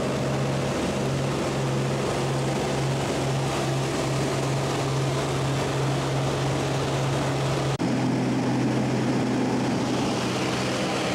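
Single-engine propeller plane's piston engine and propeller droning steadily at takeoff power, heard from inside the cabin during the takeoff roll and climb. About three-quarters of the way through, a click and a brief dropout are followed by a slight change in the drone's pitch.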